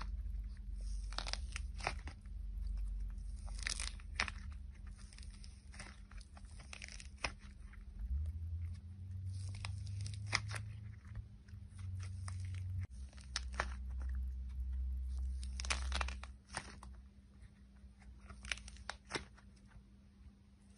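Thick orange slime squeezed and pulled apart in the hand, giving irregular crackling and crunching pops as it stretches and tears, over a low steady rumble.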